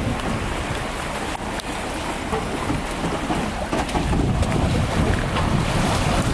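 Wind buffeting the microphone over lapping lake water. From about four seconds in it grows louder as water splashes and churns around a boat trailer's wheels being backed into the lake.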